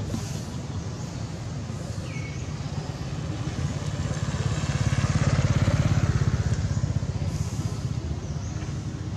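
A motor vehicle's engine running as it passes by, a low pulsing rumble that grows louder to a peak around the middle and then fades.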